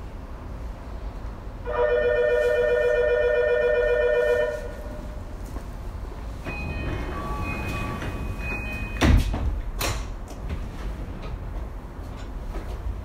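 Tokyu 2020 series commuter train standing at a station: a loud steady tone for nearly three seconds early on, then fainter tones, and the sliding doors opening with two sharp thumps a little past the middle, over low cabin rumble.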